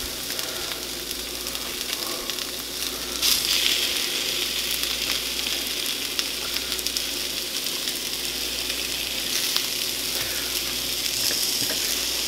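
Diced onions and bell peppers sizzling in a cast-iron skillet, a steady frying hiss that grows louder about three seconds in.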